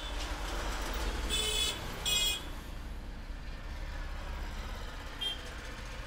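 Steady low background rumble with two short, high-pitched toots about a second and a half and two seconds in.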